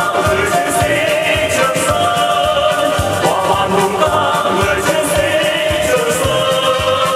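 A man and a woman singing a Vietnamese song as a duet into microphones, over instrumental accompaniment with a steady beat.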